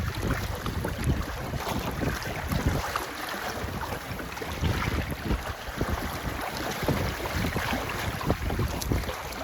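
Wind buffeting the microphone in uneven gusts over the wash of water, aboard a sailboat.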